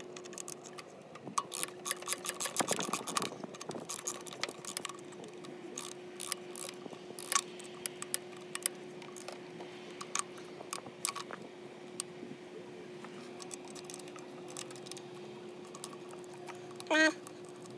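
Small ratchet with a T20 Torx bit clicking in short scattered runs while backing out the screws of a throttle position sensor. Light metallic clinks come from the tool and the loose screws being handled.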